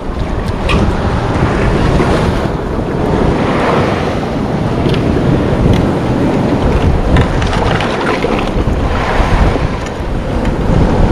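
Heavy wind buffeting the microphone over the steady wash of sea waves on the shore, with a few faint ticks.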